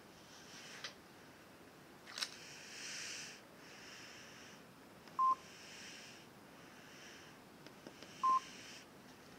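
Samsung SGH-X700 mobile phone's keypad tones: two short, steady beeps about three seconds apart as its keys are pressed to move through the menus, with a soft click about two seconds in.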